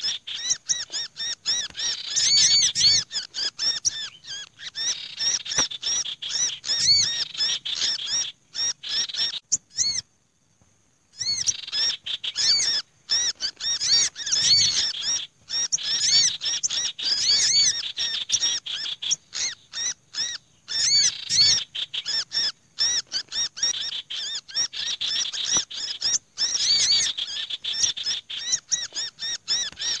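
Bird-lure recording of small birds calling in a noisy mix: a black-naped monarch's distress calls, as of a bird caught in a trap, layered with an olive-backed sunbird's agitated calling and harsh chattering. Dense, fast, high chirping throughout, broken once by a second-long gap about ten seconds in. It is meant to draw wary small birds down to the catcher.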